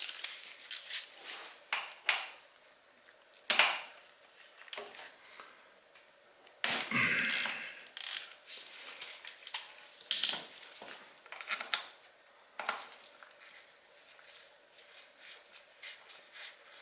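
Metal hand tools being handled: a 1/2-to-3/8-inch socket adapter, sockets and extension clicking and clinking as they are fitted together. There are scattered sharp clicks throughout and one longer rattle about seven seconds in.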